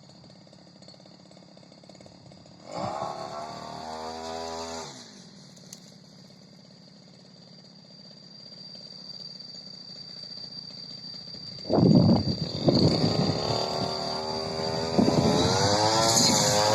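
Two-stroke brush cutter engine firing briefly about three seconds in, then dropping in pitch and dying away. It starts for good about twelve seconds in and revs up, running loudly on.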